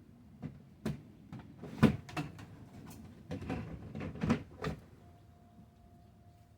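Knocks and clatters of a chicken-feed scoop and container being handled: about a dozen sharp hits over four seconds, the loudest about two seconds in.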